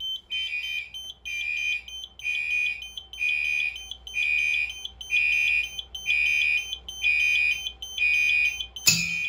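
Fire alarm sounder pulsing steadily, about four beeps every three seconds: the pre-discharge alarm of an FM-200 clean-agent suppression system under test. A single sharp click comes near the end.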